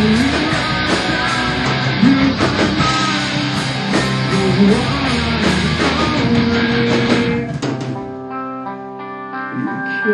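Rock band practice recording: loud, distorted electric guitar with the full band, which drops out about three-quarters of the way through, leaving a quieter, cleaner picked guitar part.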